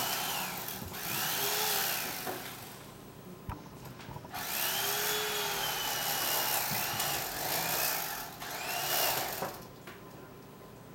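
Electric carving knife running in several bursts as it slices a roast turkey, its whine rising and falling as the blades work through the meat. There is a short lull about three seconds in.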